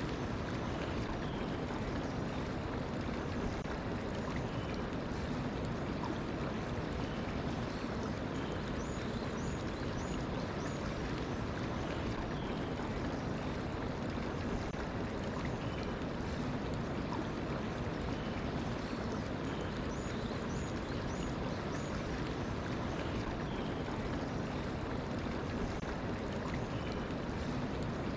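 Mountain stream flowing steadily, a constant rushing of water. Over it a small bird calls faintly, a short run of about four quick high notes repeated roughly every ten seconds.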